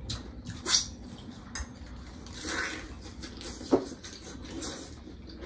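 Spoons and utensils clinking against glass bowls and plates during a meal: scattered light clinks, with two sharper knocks, one just under a second in and another near four seconds.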